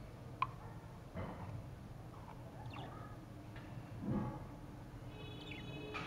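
Caged budgerigars giving a few short, scattered chirps, with one longer chirp near the end. A short low sound about four seconds in is the loudest thing.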